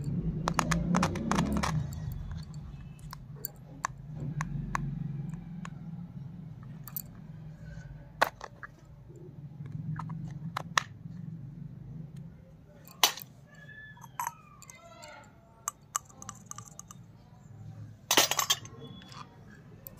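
Small plastic toy kitchen pieces clicking and tapping as they are handled and opened, with a few sharp clacks as pieces are set down on a concrete floor. The loudest clack comes near the end.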